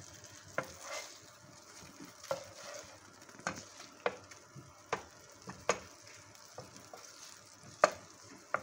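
Butter sizzling and bubbling as it melts in a hot pan, stirred with a wooden spatula, with sharp pops and clicks every second or so.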